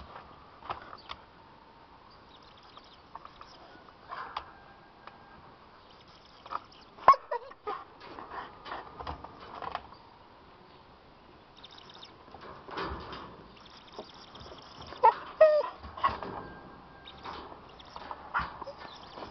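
Husky whining and yipping in short cries that bend in pitch, loudest about seven seconds in and again around fifteen seconds in. Scattered clicks and knocks come from the dog pawing at the wire kennel mesh.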